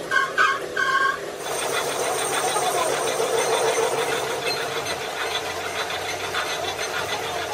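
A machine running steadily with a fast, even chatter, setting in about a second and a half in after a few short shouts or calls.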